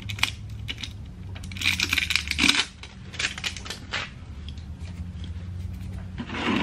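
Metallic clinks and rattles of a new spin-on oil filter being handled, with a denser spell of rattling about two seconds in.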